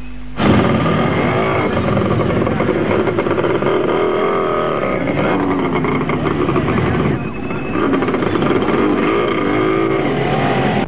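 Several motorcycle engines running and revving together, their pitch rising and falling. The sound cuts in just under half a second in.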